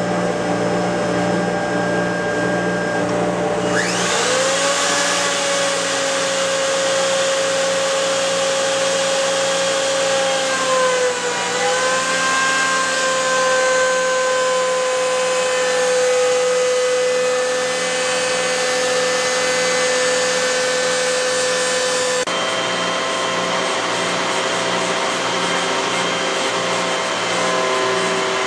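Router spindle of a CNC milling attachment on a woodturning lathe running and cutting walnut. A steady high whine glides up about four seconds in, dips briefly around the middle, then holds, over a steady low hum.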